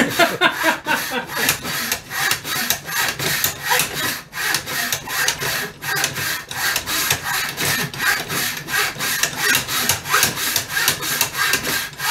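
Fine-tooth hand saw cutting through the wooden stock of a Mossberg 500 shotgun, in steady back-and-forth strokes about three a second.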